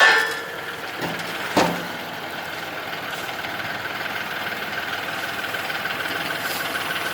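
Old Kubota tractor's engine running steadily at idle, with two sharp knocks about a second and a half apart near the start.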